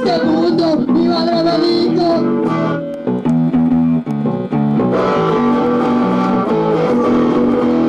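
Electric guitar playing a run of chords. In the first couple of seconds a second, wavering melody line sounds above it.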